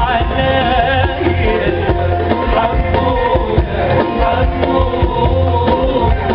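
Live Arabic music from a stage orchestra with percussion, a male voice singing over it, heard through an audience recording with heavy, boomy bass.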